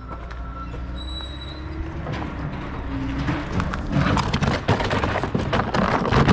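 A run of rattling and knocking clatter that grows denser from about four seconds in, over a low steady rumble.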